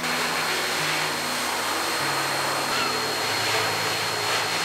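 Pet grooming dryer blowing air steadily through its hose onto a dog's coat: an even, rushing noise with a thin high whine from the motor.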